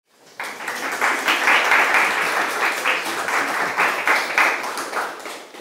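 Audience applauding. It starts suddenly about half a second in and fades out near the end.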